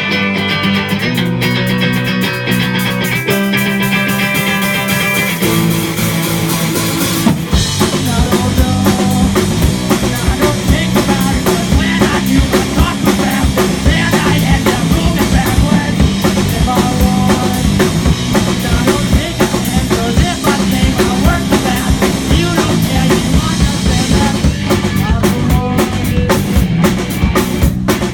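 Live rock band playing: held electric guitar chords at first, then the drum kit and full band come in about seven seconds in and carry on with a steady beat.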